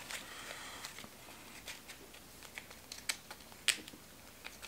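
Small clear plastic packaging being handled and pulled open: faint crinkling at first, then a few scattered light clicks, the sharpest one a little before the end.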